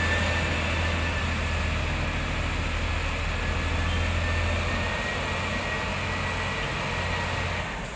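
Hydraulic excavator's diesel engine running steadily with a thin, high whine over it. The low engine drone eases about five seconds in and drops away near the end.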